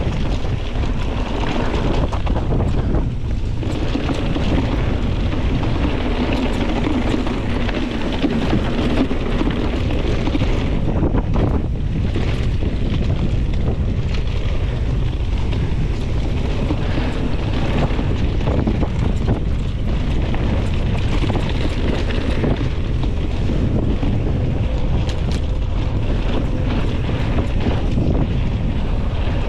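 Mountain bike ridden fast down a dirt and gravel trail: wind buffeting the microphone over the tyres' steady rumble on the ground, with a constant scatter of small rattles and knocks from the bike.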